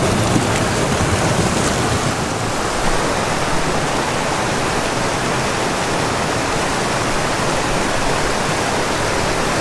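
Steady rush of water tumbling down a steep, high-gradient mountain creek close by, a constant run of small cascades.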